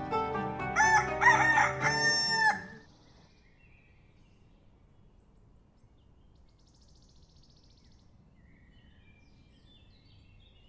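A rooster crowing, one long call rising, held and falling off about a second in, over the end of plucked-string music. After that it goes quiet apart from a few faint bird chirps.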